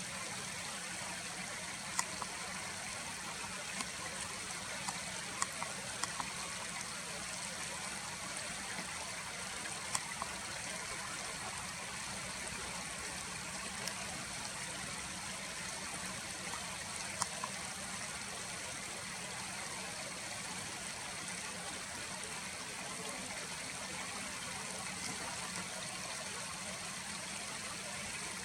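Steady rush of a flowing stream, with a few short sharp clicks scattered over the first two-thirds.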